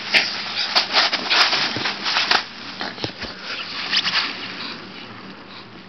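Nylon play-tent fabric rustling and crackling as two West Highland white terriers scuffle and scrabble on it, with several sharp crackles in the first couple of seconds, then softer rustling.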